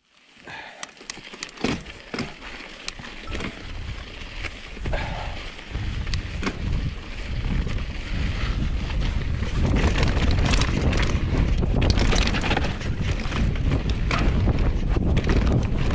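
Mountain bike riding down a dirt trail: tyres on loose dirt and many short rattles and knocks from the bike. Wind buffeting the microphone grows louder as the bike picks up speed.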